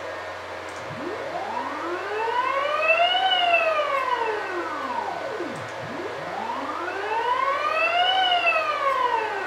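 NEMA 34 closed-loop stepper motor jogging twice, its whine rising in pitch as it speeds up and falling as it slows down, each move taking about five seconds. The gentle ramps come from a slow acceleration setting of 50 mm/s².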